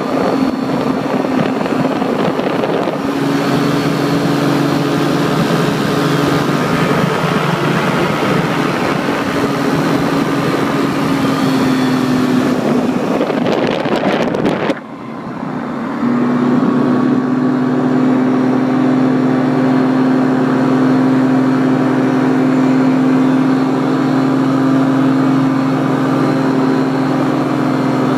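Paramotor engine and propeller running steadily, with wind rushing over the microphone during low flight. About 15 s in the sound dips briefly, then the engine runs on at a steady pitch with much less wind.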